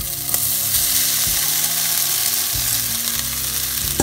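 Seasoned chopped beef sizzling steadily in hot oil in a frying pan, just after it has been added.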